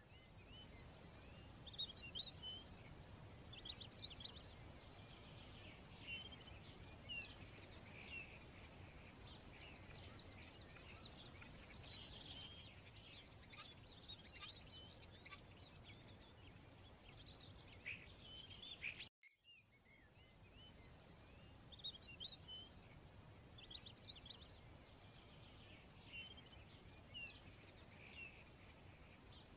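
Faint birdsong: many small birds chirping and twittering in quick, scattered calls over a low steady hiss. The sound cuts out completely for a moment about nineteen seconds in, then the chirping resumes.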